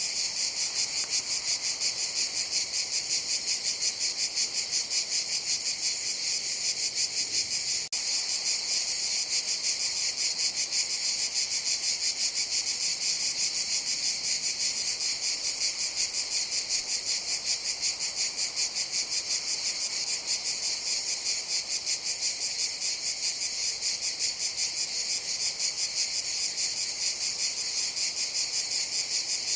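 Cicadas buzzing in a steady, high-pitched chorus with a fast, even pulsing.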